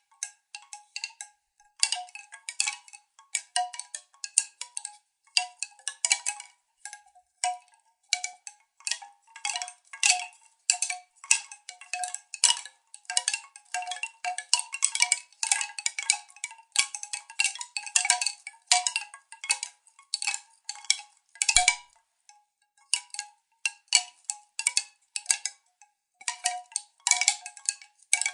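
Hollow wooden tubes knocking against each other in many quick, irregular clacks, each with a short pitched ring. The clacks come in clusters with brief pauses, and one heavier knock with a low thump falls about three quarters of the way through.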